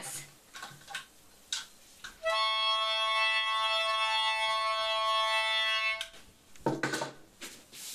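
A small handheld horn blown by mouth, sounding one long steady note for nearly four seconds before it cuts off. A few soft handling clicks come before the note.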